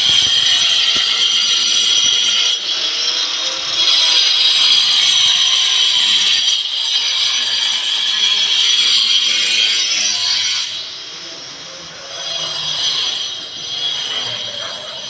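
Electric power cutter, a grinder-type tool cutting chases into a masonry wall for pipes, running loudly with a high-pitched whine. It breaks off briefly twice and stops about eleven seconds in, after which fainter work noise goes on.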